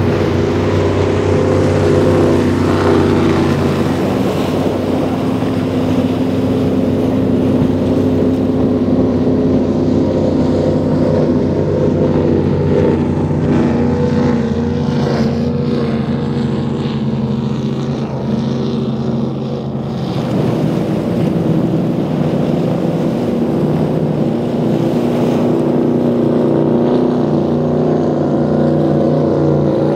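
High-performance offshore powerboat engines running hard at speed, a loud steady drone of several engine tones. About two-thirds of the way through the note changes as a different boat takes over: a Skater 40 with twin twin-turbo 572 Duttweiler engines.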